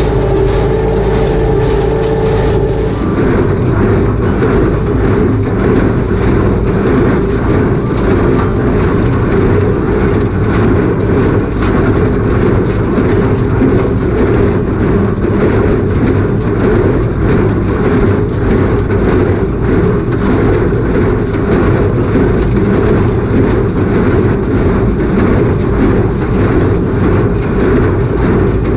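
Farm tractor's diesel engine running steadily under load with the clatter of a hay implement working behind it. A higher steady hum drops out about three seconds in.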